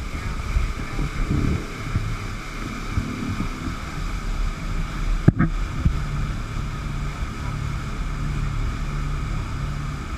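Motorboat engine running steadily, with wind buffeting the microphone and water rushing past the hull. A single sharp click a little over five seconds in.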